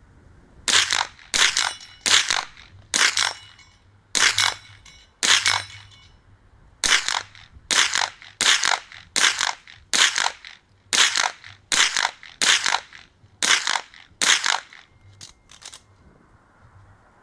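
Rapid string of shots from a .22 rimfire mini rifle, about eighteen sharp cracks at roughly one every half second to second, with a short pause about six seconds in and two fainter cracks close together near the end.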